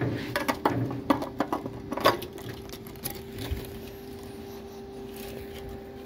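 Hands handling engine parts: a quick run of light clicks and knocks over the first two seconds, a few more up to about three seconds in, over a steady low hum.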